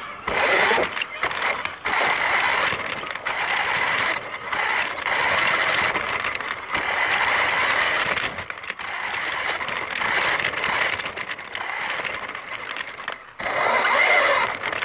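Toy RC car's electric motor and gears whirring as it drives, stopping and starting several times.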